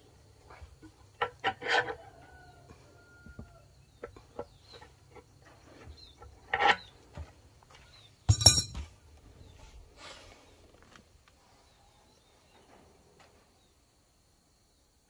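Metal clicks and knocks of an adjustable wrench working a nut on a steel bolt set in a wooden beam, with a loud metallic clank about halfway through as the wrench is set down.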